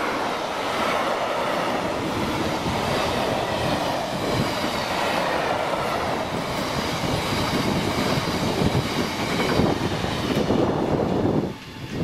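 Freight train of oil tank wagons passing at speed, the steel wheels rumbling and knocking over the track with a faint high ringing. The noise drops away suddenly near the end as the last wagon clears.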